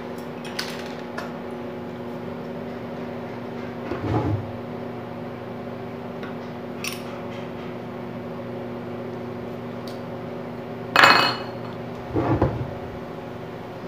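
Steady electrical hum of a microwave oven running while it heats plastisol. Over it come a few knocks and clatters of wood being handled on a wooden mould-clamping jig, the loudest about 11 seconds in and another shortly after.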